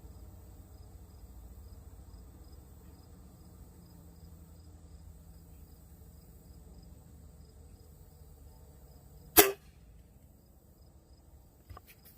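A single shot from a 4.5 mm (.177) break-barrel pellet rifle about nine seconds in: one sharp crack with a brief ring after it. Before it there is only a faint low background hum, and a couple of faint clicks follow near the end.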